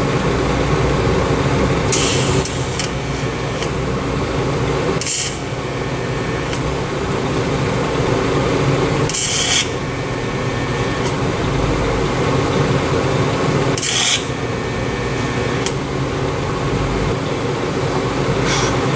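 A power tool working steadily on the stuck steel dowel pins in the engine block, with a short hissy burst every few seconds.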